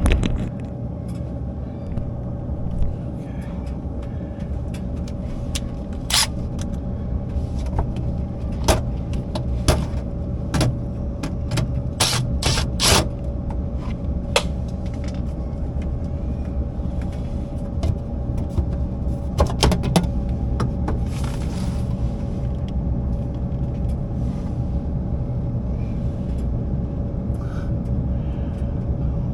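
Steady low machine rumble with a constant hum, broken by scattered sharp clicks and knocks as a metal access door or panel is worked loose with hand tools. The knocks are thickest in the first half, and there is a second cluster about two-thirds of the way through.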